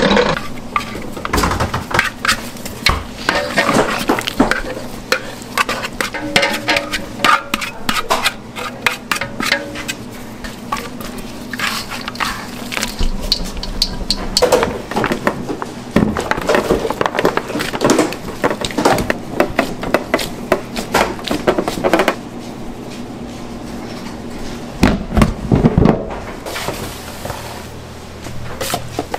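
Bakery kitchen work: a busy run of clinks, taps and knocks of utensils, bowls and trays being handled, over a faint steady hum. It eases off after about twenty seconds, with a louder burst of knocks a few seconds later.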